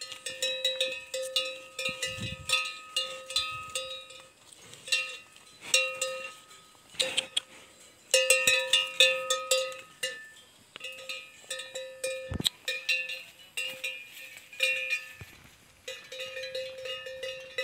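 Bell hanging at a water buffalo's neck clanking irregularly as the animal moves, each clank ringing on a steady tone, coming in clusters with short gaps between.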